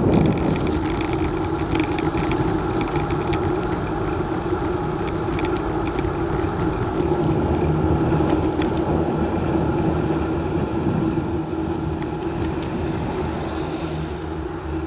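Steady running noise of the vehicle carrying the camera as it travels along a paved road: an even mid-pitched drone with road and wind noise and a few light ticks, easing a little near the end.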